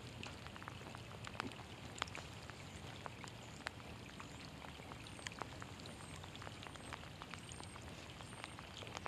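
Light rain falling, an even hiss broken by many small sharp ticks of drops landing close by. In the second half a faint high peep repeats about twice a second.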